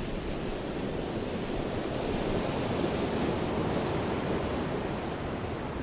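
Ocean surf washing in a steady rush that swells a little in the middle and eases again.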